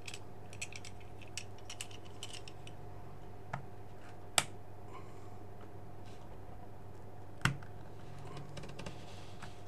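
A utility knife blade prying at the plastic casing of a small TFT monitor, making light scattered clicks and ticks, with two sharper clicks about four and seven and a half seconds in. A faint steady hum sits underneath.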